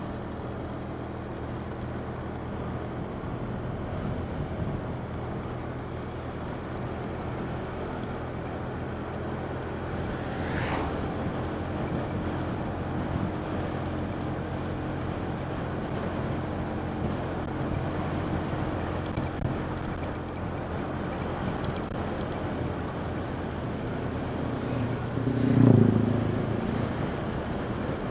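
Motorcycle engine running steadily on the move, with wind and road noise buffeting a phone microphone mounted on top of the rider's helmet. A brief louder swell comes near the end.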